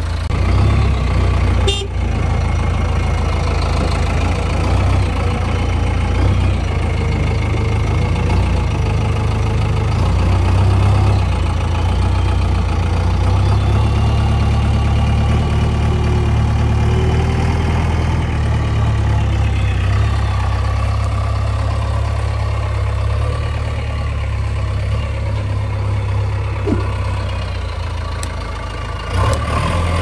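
JCB backhoe loader's diesel engine running steadily at work, with a deep low hum throughout.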